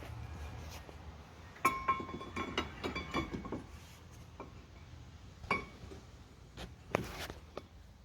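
Steel brake parts clinking and knocking as they are handled and fitted: the caliper bridge going over the rotor and its bolts. A cluster of clinks with a brief metallic ring comes about two seconds in, then a few single knocks.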